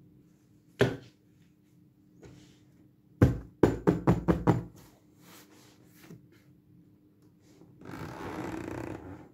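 A knock, then a quick run of thumps and knocks as hands press and pat a padded vinyl toy case. Near the end a zipper is pulled open along the case's edge for about a second.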